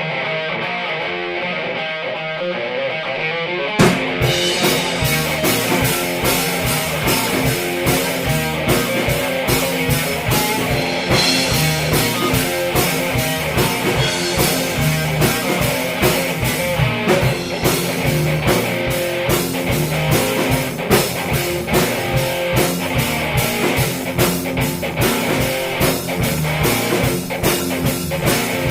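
Rock band playing an instrumental passage. A guitar plays alone at first, then drums and low end come in with a hit about four seconds in, and the full band carries on with a steady beat.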